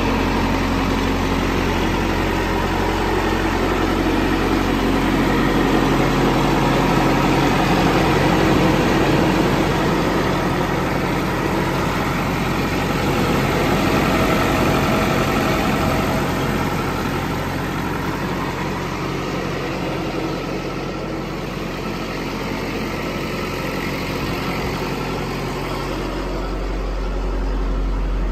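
Backhoe loader's diesel engine idling steadily, its low hum growing a little louder near the end.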